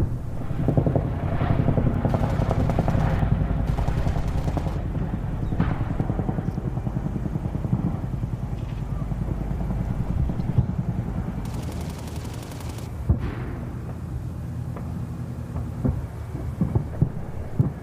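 Battle sound effect: sustained rapid machine-gun fire over a low rumble, thinning out in the last few seconds to scattered single shots.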